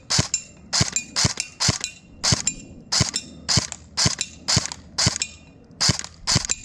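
Airsoft gun fired in quick semi-automatic shots, about a dozen sharp cracks at roughly two a second.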